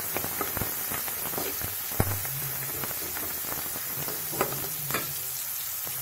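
Onions, chillies and mustard seeds sizzling in hot oil in a metal kadai as a slotted metal spatula stirs in turmeric, knocking sharply against the pan about three times.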